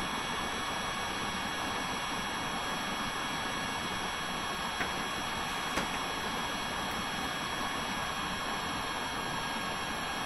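Steady background hiss with a faint, thin high-pitched whine running under it, and two faint clicks about five and six seconds in.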